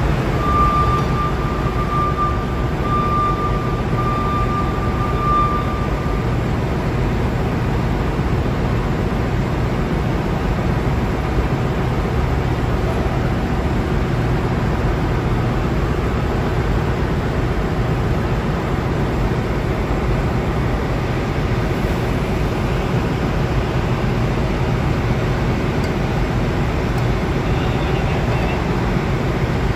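Steady, unchanging drone of ship's engine-room machinery, with a thin high whistle for the first five or six seconds.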